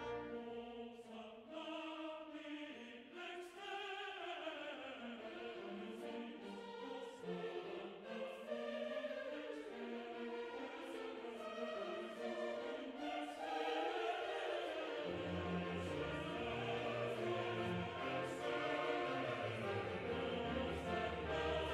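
Orchestral music with a choir singing long, sustained notes; a low bass part comes in about two-thirds of the way through.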